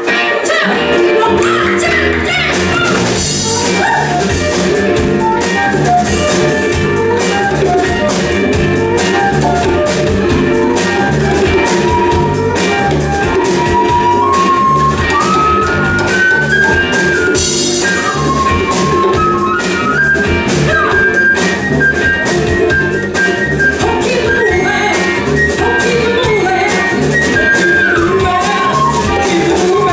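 Live Latin funk band playing: drum kit and congas keep a steady groove under electric guitar, while a flute plays a stepping lead melody over the top.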